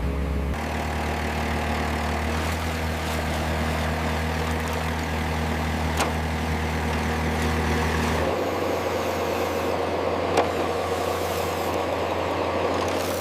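Low, steady diesel-style engine drone from RC construction machines. Its tone shifts abruptly about half a second in and again after about eight seconds, with a sharp click near six seconds and a louder knock near ten.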